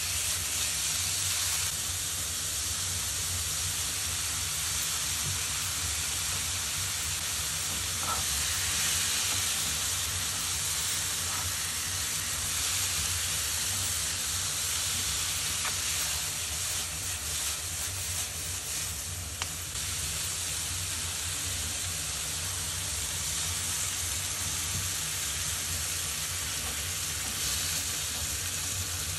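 Food sizzling steadily as it fries in a pan.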